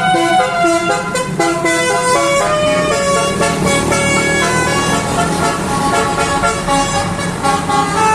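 Basuri musical bus horn playing a 'telolet' tune, its pitched notes jumping in steps from one to the next, with an engine running underneath.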